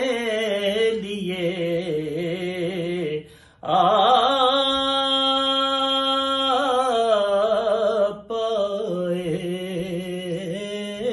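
A man singing a naat in Urdu, one solo voice in ornamented, wavering lines. He breaks for a short breath about three and a half seconds in, then holds one long steady note for about two and a half seconds before the melody moves on.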